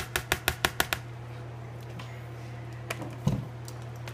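Rapid, even clicking, about six sharp clicks a second, that stops about a second in; a single dull thump follows about three seconds in.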